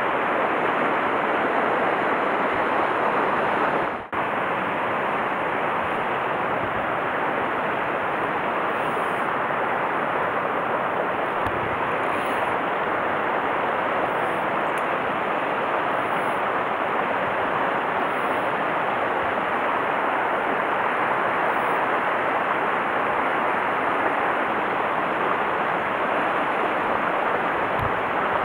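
Mountain stream rushing over rocks and through small riffles: a steady, even rush of water that drops out for an instant about four seconds in.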